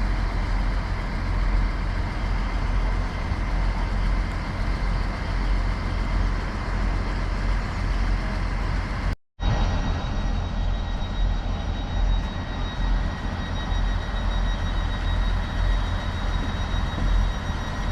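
Class 158 diesel multiple unit idling at the platform: a steady low engine drone with faint constant whines above it. The sound cuts out for a moment about halfway through.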